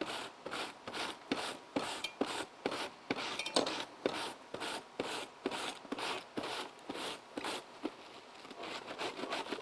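An apple being shredded on a handheld mandoline slicer with a shredding blade: short rasping strokes about three times a second, getting fainter near the end.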